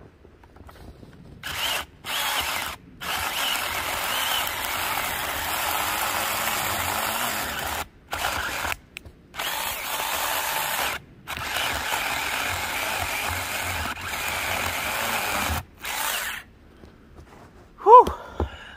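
Saker battery-powered mini chainsaw with a 4-inch bar cutting through a piece of wood wider than its bar, in about seven on-off bursts, the longest about four seconds, each cutting off sharply; the saw struggles with the cut. Near the end, a brief loud sound with a falling pitch.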